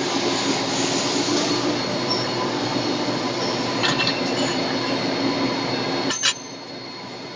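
Steady running noise of the CNC lathe and its automatic rod loader, a hum with a few steady tones. About six seconds in there is a sharp metallic clank, and the running noise drops off after it.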